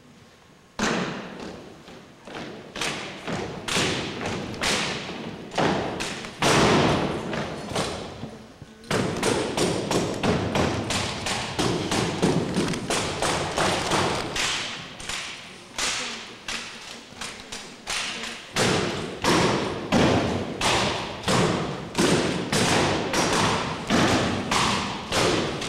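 Armed drill team's rifle routine: a long series of sharp knocks and thumps as drill rifles and boots strike the wooden gym floor, echoing around the gymnasium. The strikes are uneven at first, then come denser and steadier at about one to two a second from about nine seconds in.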